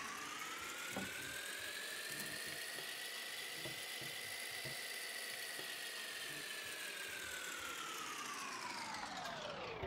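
Whirring sound effect whose pitch climbs slowly for about four to five seconds and then sinks back down in one smooth arch, with a few faint ticks underneath, typical of a fast-forward effect laid over sped-up footage.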